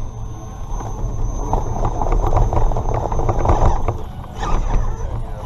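Redcat Gen7 Pro RC rock crawler clattering over rocks, a rapid run of small knocks and scrapes from its tyres and chassis, heard from a GoPro mounted on the truck itself, densest in the middle, over a steady low rumble.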